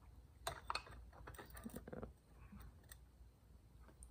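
Faint, scattered clicks and light metallic ticks of small Stihl chainsaw parts, the clutch drum/sprocket and a washer, being handled and slid onto the crankshaft.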